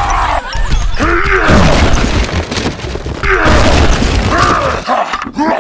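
Dubbed-in cartoon sound effects: low booms and rumbling for a smash into the ground, mixed with short voice-like cries that bend down in pitch.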